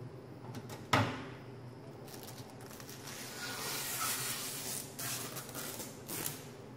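A sharp click about a second in as the Samsung microwave's door latch releases and the door is pulled open, followed by a few seconds of crinkly rustling from the plastic protective film being handled.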